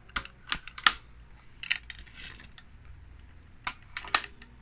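Light, irregular clicks and taps of small hard plastic and metal parts being handled, about eight in all, the loudest about four seconds in.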